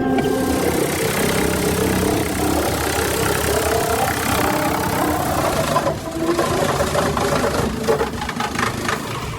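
Heavy machinery running: an engine under a dense, rushing mechanical noise that changes character about six seconds in.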